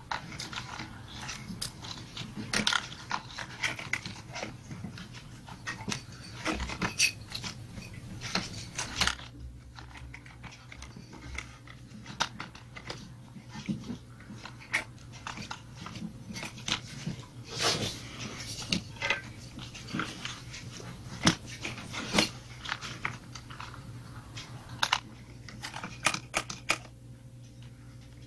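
Irregular small clicks, taps and rattles of plastic and metal parts and wiring being handled and fitted onto a Husqvarna 440 chainsaw's carburetor area, over a steady low hum.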